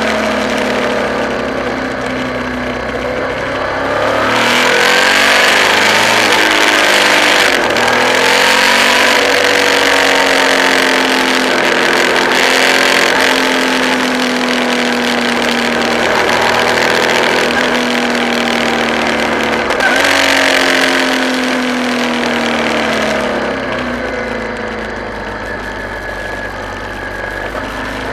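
Suzuki V-Strom 650's V-twin engine running under way through bends, its pitch climbing as it accelerates and sagging slowly as it eases off, over steady wind and road rush. The rush swells louder twice, once about four seconds in and again past the twenty-second mark.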